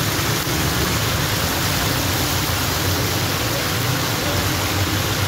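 Fish deep-frying in a large wok of hot oil: a steady, loud sizzle, with a low rumble underneath.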